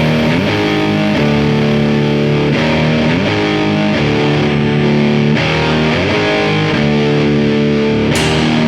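Heavy rock music led by a distorted electric guitar holding sustained chords that slide to a new pitch about once a second.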